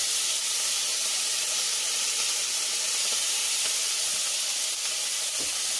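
Minced garlic and ginger paste sizzling in hot avocado oil in a stainless steel wok, a steady hiss. The hiss comes from the moisture in the garlic hitting the hot oil.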